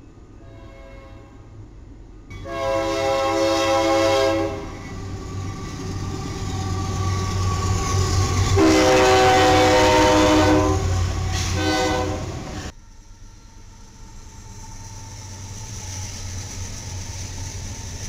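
Freight locomotive air horn sounding close by: a long blast, a longer one a few seconds later, then a short blast, over the low rumble of the diesel engines. Partway through the horn stops abruptly and a freight train's steady rumble of passing follows.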